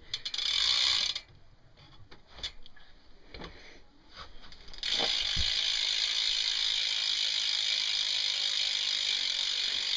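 BMX rear hub freewheeling: the pawls ratchet in a fast, even buzz as the wheel spins. It buzzes for about a second, drops to slower scattered clicks, then buzzes steadily again from about halfway in.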